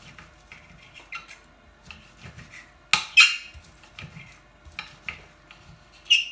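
Knife slicing cooked chicken fillets on a chopping board: a run of light, irregular taps, with louder clinks of metal about three seconds in and near the end, the last one ringing briefly.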